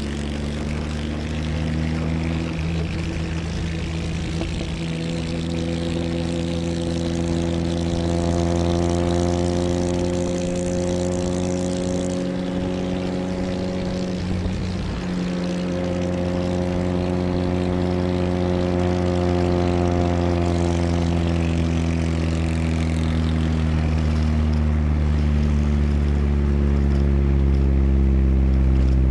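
A 1982 Chevrolet Chevette's rebuilt 1.4-litre eight-valve four-cylinder engine pulling while driving. The engine note rises slowly for the first half, breaks briefly about halfway through, then runs on fairly steadily.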